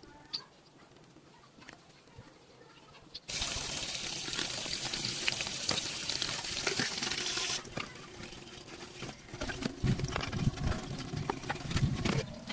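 Running water: after a few seconds of quiet with small clicks, water suddenly starts gushing with a loud, even hiss, then after about four seconds drops to a lower, uneven splashing with dull thuds.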